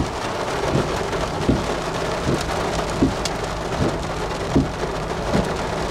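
Heavy rain pouring down with a steady hiss, with a soft low thump about every three quarters of a second.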